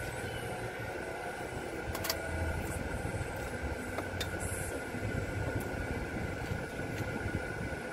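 Steady hum of a car idling, heard from inside the cabin, with a few sharp crackles of aluminium foil being handled about two and four seconds in.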